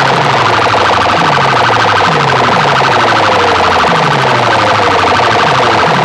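A box DJ rig of stacked horn loudspeakers plays a very loud, distorted competition track: a siren-like electronic effect falls in pitch over and over, about every three-quarters of a second, over a fast buzzing pulse.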